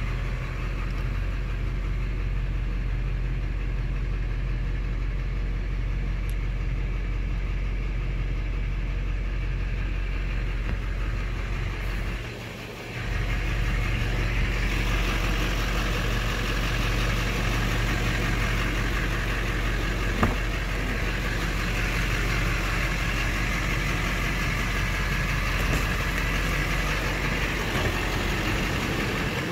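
Chevrolet Duramax 6.6-litre V8 turbodiesel idling steadily, with a brief drop in level about twelve seconds in.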